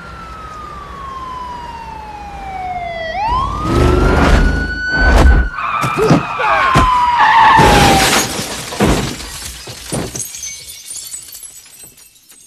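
Police siren wailing, its pitch falling slowly and then sweeping back up, followed by a car collision: a run of loud crashes over several seconds that dies away near the end.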